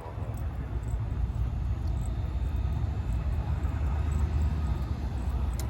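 Car driving, its engine and road noise heard from inside the cabin as a steady low rumble that comes up at the start.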